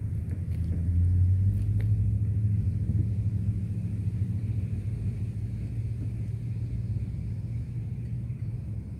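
Low rumble of diesel freight-train locomotives running out of view, a deep engine drone that is loudest a second or two in and then slowly eases off.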